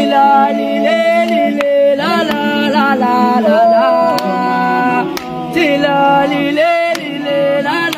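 A group of men singing a gwijo song a cappella, several voices in harmony holding and moving between sustained notes.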